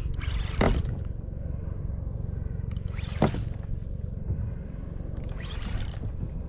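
Wind buffeting an action camera's microphone in a steady low rumble over water noise, with two short sharp sounds, one about half a second in and one about three seconds in.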